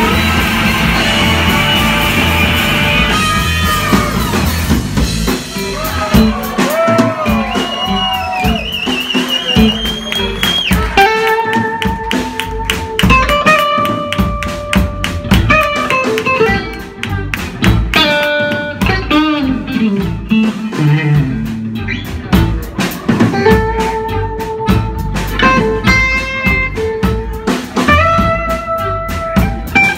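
Live blues-rock band playing an instrumental break: lead notes held, bent and shaken with vibrato over electric guitars and drums.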